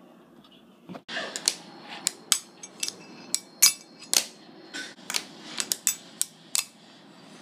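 Fingerboard ridden by hand on a tabletop ledge: its wheels roll with a low rumble, broken from about a second in by a string of sharp, irregular clacks as the deck pops, lands and grinds on the ledge and the wooden table.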